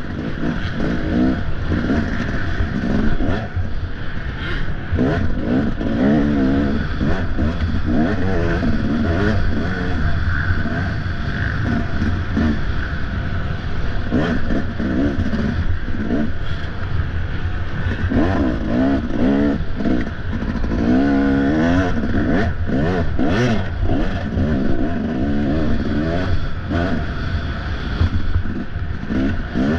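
Off-road dirt bike engine revving up and down over and over as it is ridden hard on a race course, with scattered clattering knocks and a steady low rumble underneath.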